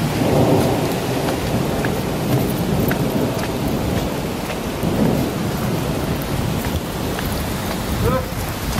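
Heavy rain pouring and spattering on the road and cars, with thunder rumbling through it. The rain is a steady, loud wash with scattered sharp drop hits.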